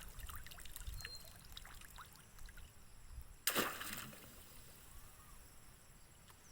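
Faint water trickling and dripping, with one short sudden noise about three and a half seconds in.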